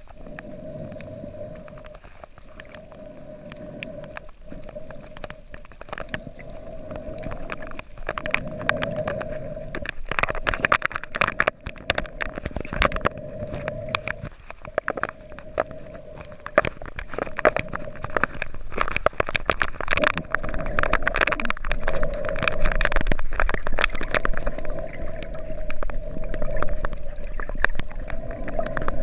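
Underwater sound: a steady hum with dense crackling clicks and water movement, growing louder about a third of the way in.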